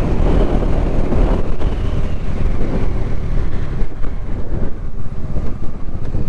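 Wind rushing and buffeting over the microphone while riding a Bajaj Dominar 250 motorcycle, with its single-cylinder engine running steadily underneath.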